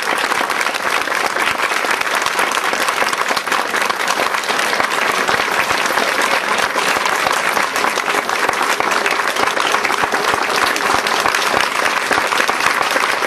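Large crowd applauding steadily in a welcoming ovation.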